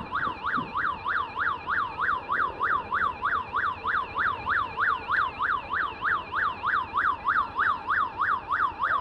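Emergency vehicle siren in its fast yelp mode: a loud wail sweeping up and down about four times a second, repeating evenly without a break.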